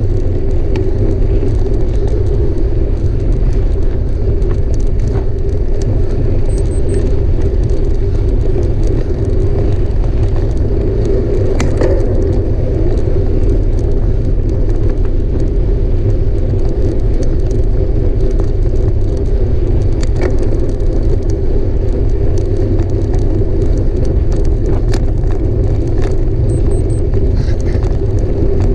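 A mountain bike ridden hard over rough ground, heard from on the bike: a steady rolling rumble and drone from the tyres, with frequent small rattles, clicks and knocks from the bike.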